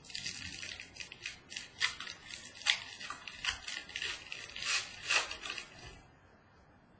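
Crinkling and rustling of packaging as a trading-card box is opened and the cards are handled, a quick run of small crackles and scrapes that dies away about six seconds in.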